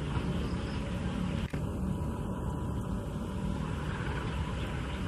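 Diesel engine of a KAI CC 203 diesel-electric locomotive running as it approaches hauling a passenger train: a steady low rumble. There is a brief dropout about a second and a half in.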